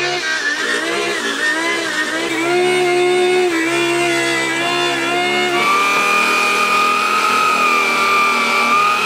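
Electric food processor shredding turnip, its motor whine wavering and dipping under load in the first half, then switching abruptly to a steadier, higher whine about halfway through. The slowing comes from old, fibrous turnip pieces catching in the blades.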